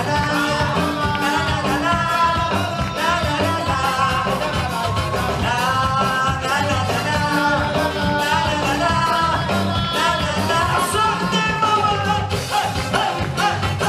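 Live sega music played by a band: a drum kit keeping a steady, fast beat under guitar, with a singer's voice over the top.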